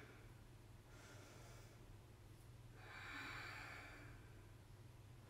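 Faint breathing: two soft breaths, a weak one about a second in and a longer one around three seconds in, over a low steady hum of room tone.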